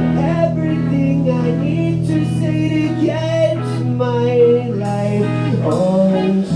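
Ska-punk band playing live: electric guitar, bass and vocals over drums, with cymbal hits.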